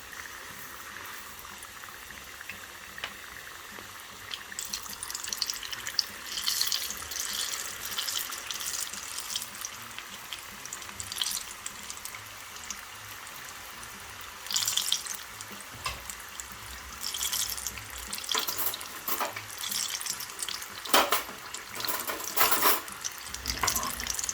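Duck spring rolls deep-frying in hot oil: a steady sizzle with bursts of crackling that come and go, loudest a few seconds before the end.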